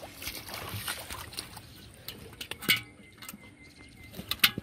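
Bare feet splashing and squelching through shallow water and mud, then sharp splashes and knocks as a catfish is lowered into a pot of water holding other live catfish, loudest near the end.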